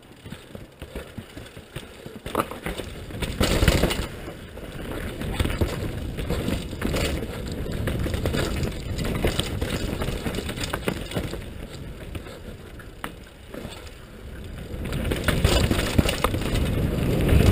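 Downhill mountain bike descending a rough dirt trail, heard from a helmet-mounted camera: a continuous rush of wind on the microphone mixed with knobby tyres on dirt and roots and frequent rattles and knocks from the bike. It surges louder about four seconds in and again over the last few seconds.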